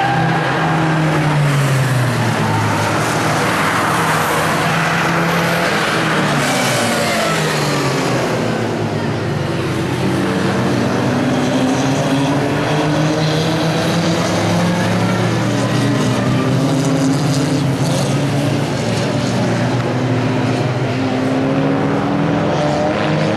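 Several racing car engines running hard, their pitch rising and falling repeatedly as the drivers accelerate, shift and lift for the corners.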